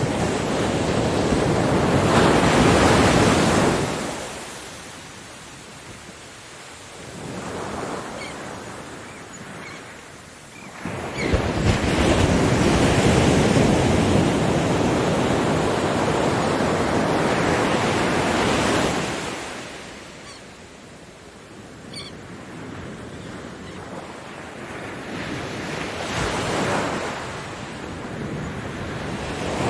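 Surf on a beach: waves breaking and washing back in slow surges. The loudest break comes in suddenly about eleven seconds in and holds for several seconds before it ebbs, with quieter wash between the breaks.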